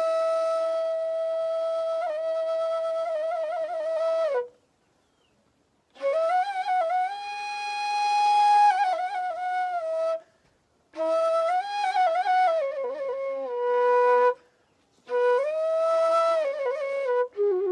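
Solo flute playing a Nepali folk melody in phrases of long held notes with quick trills, breaking off into brief silences three times.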